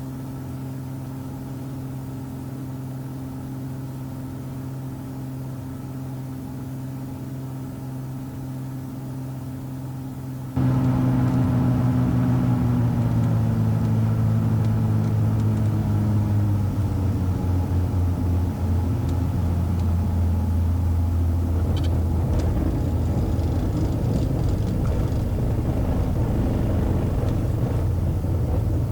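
Pressurized Cessna Skymaster's front and rear piston engines droning steadily. About a third of the way in, the sound jumps suddenly louder and the engine tones fall in pitch over several seconds. A broad low rumble then takes over, as the plane rolls out on the runway after landing.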